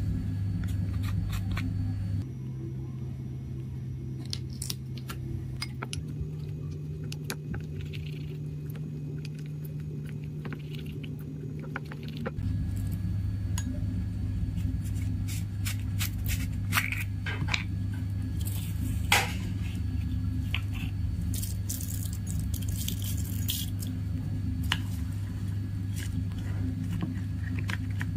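Small clicks, taps and scrapes of hands handling a small plastic colour pot and a bowl of slime glue, with stirring by a plastic spoon near the end. Under them runs a steady low hum that shifts in pitch a few times.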